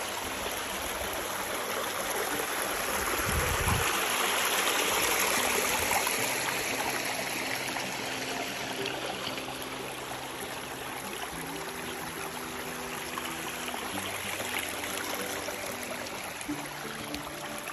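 Small creek running and splashing over hand-built rock steps: a steady rush of water, made louder on purpose by the little stone weirs.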